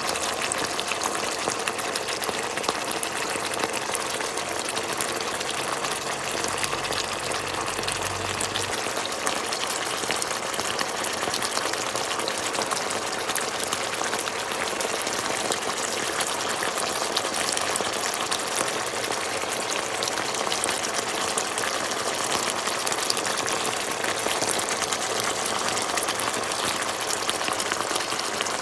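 Thick sauce of a spicy wild boar stir-fry bubbling and sizzling in a pan, a steady dense crackle of bursting bubbles.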